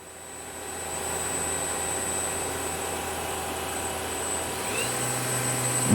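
Main spindle of a Tsugami S206 CNC Swiss-type lathe running at about 5000 rpm: a steady whirring hiss with a thin high whine, swelling over the first second. Near the end a faint rising tone comes in as the spindle begins speeding up toward 7500 rpm.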